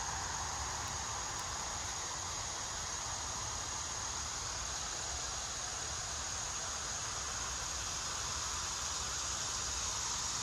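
Steady outdoor background: a continuous high-pitched insect drone over an even hiss and low rumble.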